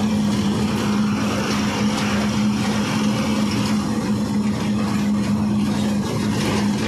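Ashok Leyland 14-tyre truck's diesel engine running at highway speed, heard inside the cab with road noise: a steady, loud drone with a constant low hum.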